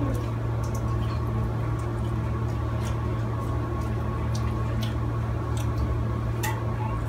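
Steady low hum of room background with a few faint, scattered clicks and taps.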